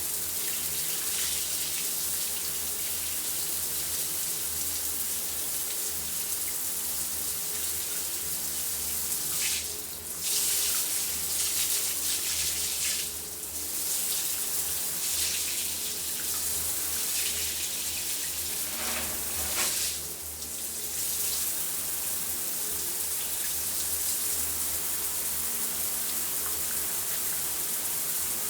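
Shower running: a steady hiss of spraying water. Three times near the middle the spray changes briefly, as if the stream were interrupted.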